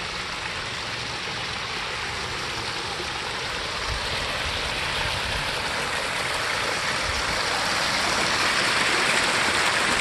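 Water from a rebuilt garden waterfall splashing down stacked rocks into a pond, a steady rushing that grows slowly louder as the falls get nearer.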